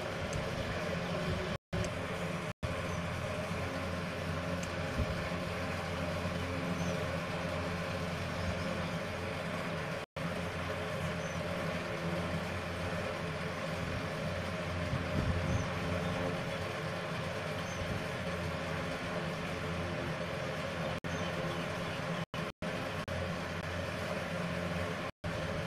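Steady background hum and rumble, broken by a few very short dropouts to silence.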